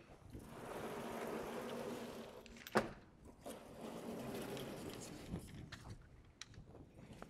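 Chalkboard being erased and its sliding panels moved: a stretch of steady rubbing, a sharp knock just under three seconds in, then a quieter stretch of scraping with a few small clicks.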